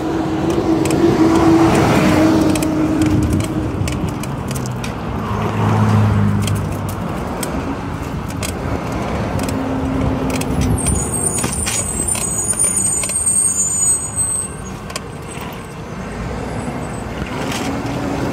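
Street traffic: cars passing on a busy road, the noise swelling and fading as vehicles go by. Partway through comes a few seconds of high metallic jingling with light clicks.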